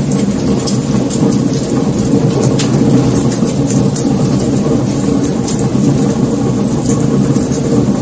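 Wood fire burning: a steady low rumble of flames with a few sharp crackles and pops from the burning logs scattered through it.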